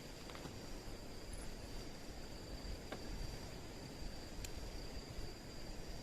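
Crickets or similar night insects giving a steady, unbroken high-pitched trill, with a low rumble underneath and a few faint clicks.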